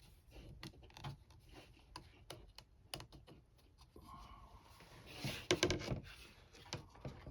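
Scattered small clicks, taps and scrapes of hands working on a camper window and its rubber gasket strip, with a louder burst of scraping and clicking a little past five seconds in.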